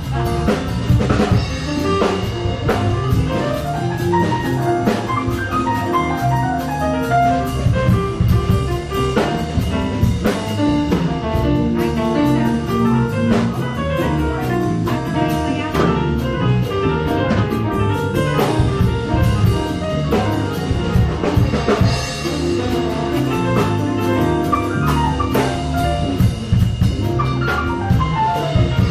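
Live jazz instrumental played by a small band: drum kit, keyboard and hollow-body electric guitar, without vocals.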